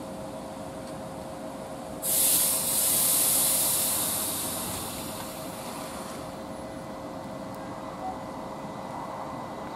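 ET4A DC electric multiple unit coming to a stop, with a steady whine and low rumble from the train. About two seconds in, a sudden loud hiss of compressed air from the air brakes starts and fades away over about four seconds.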